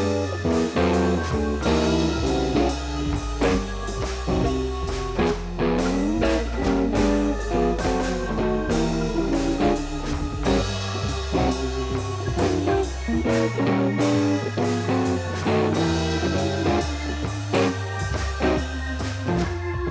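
Background music: a guitar-led blues-rock track with bass and drums and a steady beat.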